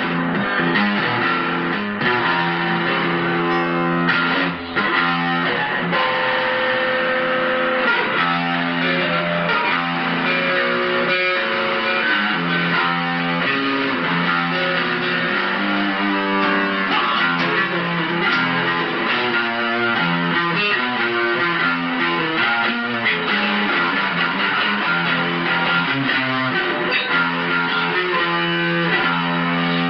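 A guitar being played continuously, with chords and picked notes changing every second or so.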